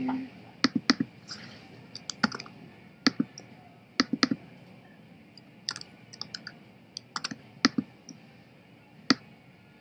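Scattered clicks of a computer mouse and keyboard, irregular and often in quick pairs or triplets, while notes are edited in a music program.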